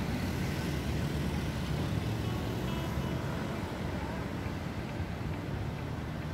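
City street traffic: cars driving slowly past close by at a crosswalk, a steady low rumble of engines and tyres over the general hum of a busy street.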